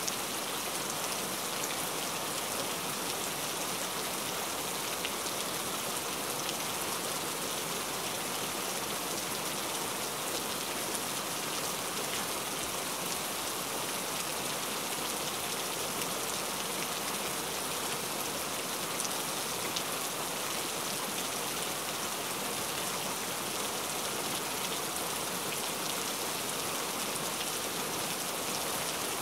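Steady rain falling: a continuous, even hiss with a fine patter of drops, unchanging throughout.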